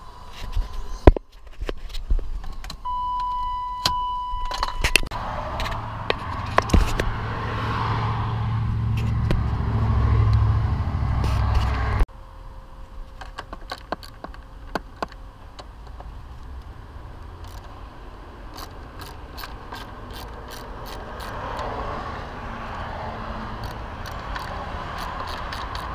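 Hand tools clicking and clinking on metal as the front strut and suspension parts of a BMW E36 are unbolted, with a ratchet working a strut-top nut. A steady beep sounds for about two seconds near the start, and a low rumble runs through the first half.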